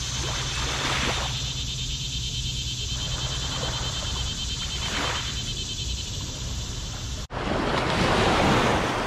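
Small river waves washing and lapping onto a muddy bank, swelling about a second in and again about five seconds in, over a steady low hum. After an abrupt break near the end, a louder wave breaks close by.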